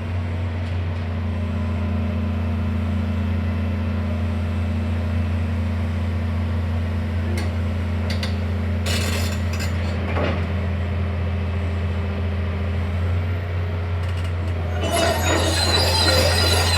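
Doosan DX340 LC tracked excavator's diesel engine running steadily with a low hum. About fifteen seconds in, metallic clinking and squealing start over the engine sound and it gets louder.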